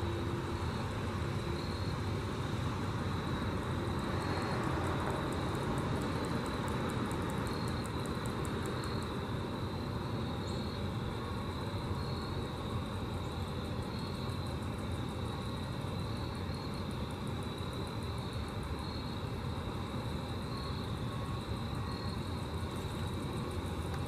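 Grasshopper stridulating: a fast, even series of high-pitched ticks, a few seconds in and again from about the middle onward, over a steady low rumble and hiss.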